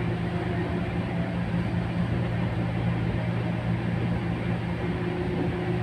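Taipei Metro Wenhu Line rubber-tyred automated train running along the elevated track, heard from inside the front car: a steady low hum with a fainter steady tone above it.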